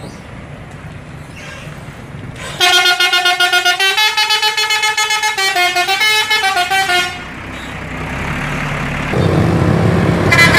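A bus's multi-tone musical "telolet" horn plays a quick warbling tune of stepping notes for about four and a half seconds, starting a few seconds in. Afterwards the engine of an approaching bus grows louder.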